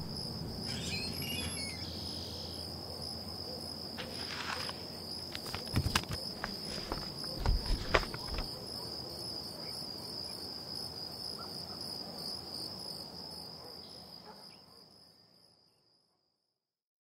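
Crickets trilling steadily over a low background rumble, with a few soft thumps and clicks partway through; the sound fades out to silence near the end.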